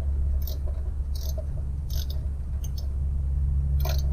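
Small metallic clicks of a wrench turning a nut onto a heater mounting bolt, about one every 0.7 seconds, over a steady low rumble.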